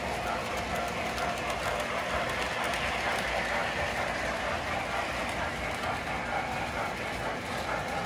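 O gauge model trains running on three-rail track: a steady rolling rumble and clatter of wheels on the rails, with fine clicks in the first second or so as a freight train passes close by.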